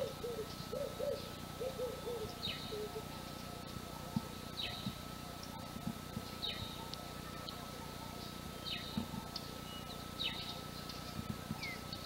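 Early-morning birdsong. One bird repeats a short call that falls in pitch about every two seconds. Low, rounded calls run through the first few seconds, over a faint steady high tone.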